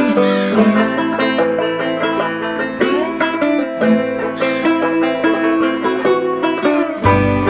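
Bluegrass-style background music with fast plucked banjo and guitar; a deeper bass comes in near the end.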